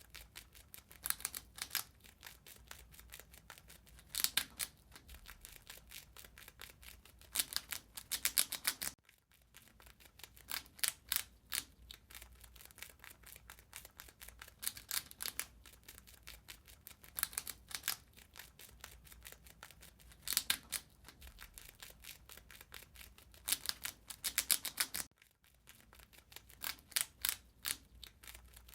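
A rat gnawing and chewing: rapid, crisp clicks that come in bursts of a second or two, separated by short quieter pauses.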